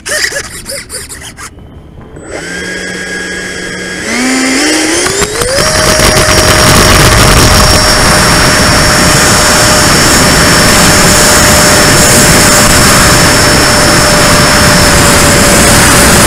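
Electric ducted fan of a Freewing T-33 Shooting Star RC jet spooling up to full throttle for takeoff. There are a few knocks at first, then a low hum about two seconds in, then a whine that climbs in steps and levels off at a steady high pitch about six seconds in. Heavy rushing air noise on the model's onboard camera rides under the whine through the takeoff run and climb-out.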